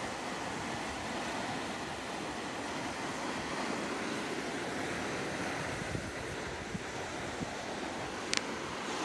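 Surf breaking and washing over coastal rocks, with wind buffeting the microphone; a short click near the end.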